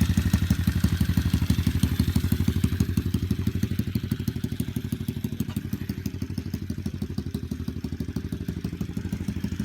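A 90cc single-cylinder pit bike engine, fitted to a motorized bicycle, idling steadily in neutral, warmed up with the choke off. The even, fast pulse grows a little fainter after about three seconds.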